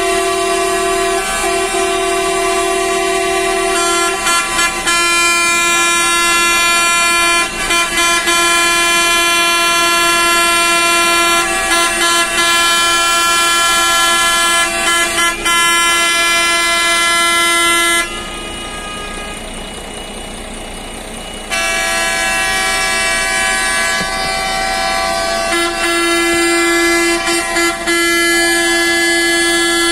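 Horns of a convoy of coaches sounding continuously in protest, several horns overlapping in a sustained chord that shifts as horns join and drop out. The horns stop for about three seconds a little past halfway, leaving a quieter noise, then start again.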